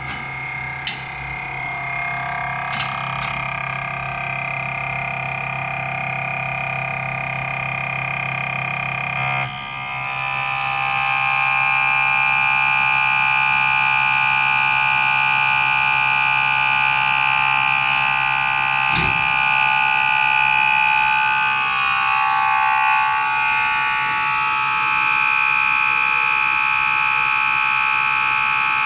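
Common rail injector test bench running with a steady high-pitched whine of several tones. About ten seconds in, a low hum stops and the whine shifts pitch and grows louder as the bench's drive changes speed, with a single knock near the end of the second third.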